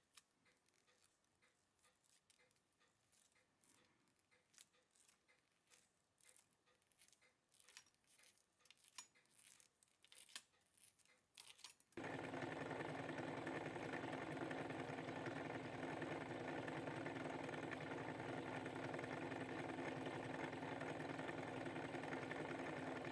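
Faint, scattered small clicks as tiny watch parts are handled with gloved fingers. About halfway, a steady humming whirr begins abruptly: a watch-cleaning machine running, its parts basket spinning in a glass jar.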